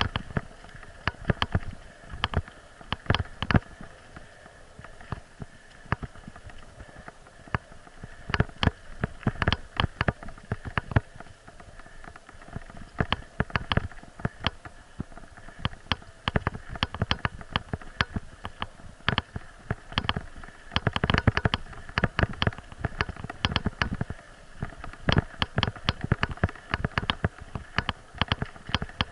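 Bicycle riding over a bumpy dirt and gravel forest track: irregular clicks and rattles as the bike and its camera mount jolt, over steady faint tyre noise. The rattling comes in denser stretches where the track gets rougher, and thins out for a few seconds in between.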